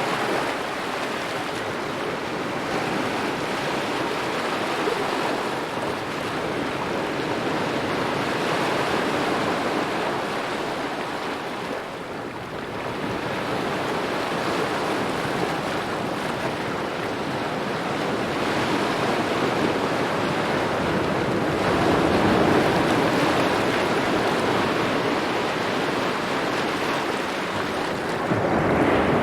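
Small ocean waves lapping at the shore, a continuous wash that swells and eases gently every several seconds.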